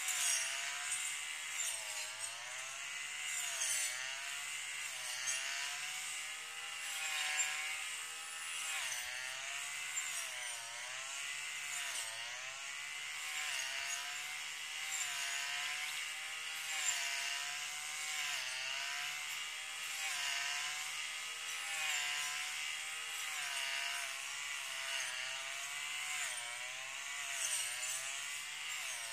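Brush cutter engine running while mowing grass and weeds, its whine wavering up and down in pitch every second or two.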